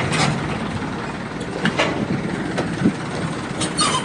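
Boat engine idling as a steady low rumble, with a few short knocks and clatter on top, a cluster of them near the end.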